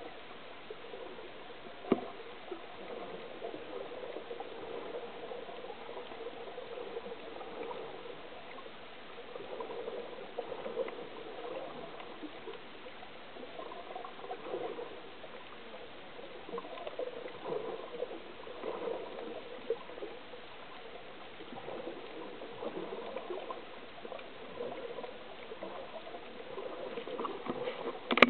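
Muffled, shifting underwater water noise with swells of swishing and gurgling, recorded with the camera under the sea surface. A single sharp click about two seconds in.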